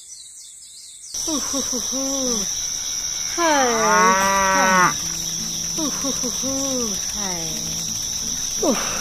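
Cows mooing, four drawn-out calls with the loudest near the middle, over a steady high chirring of crickets that starts about a second in: a countryside ambience.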